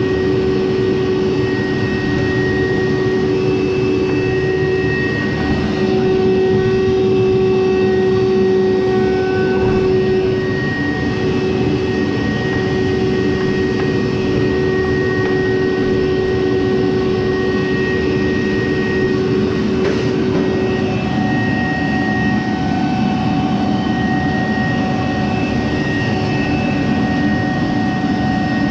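Frigidaire electric dryer running: a steady motor-and-drum hum with a few held whining tones.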